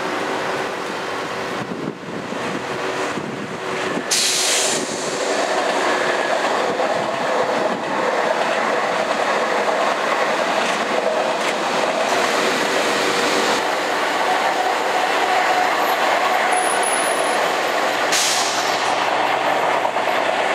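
Electric passenger trains running past on the tracks, first a TGV and then an RER D double-deck commuter train: a steady, loud rolling noise of wheels on rail with a hum running through it, getting louder about four seconds in.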